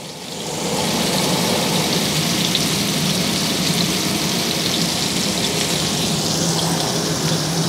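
Marinated chicken pieces sizzling in oil in a ridged grill pan, a steady frying hiss that builds up within the first second and then holds level, with a low steady hum underneath.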